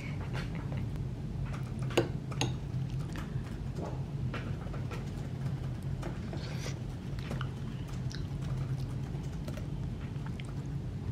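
A metal spoon clicking and scraping in a ceramic bowl of thick pumpkin porridge, with scattered small clinks and one sharper click about two seconds in, over a steady low room hum.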